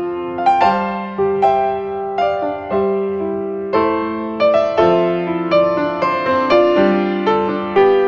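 Background music: a gentle keyboard piece in a piano sound, notes struck every half second or so and left to ring.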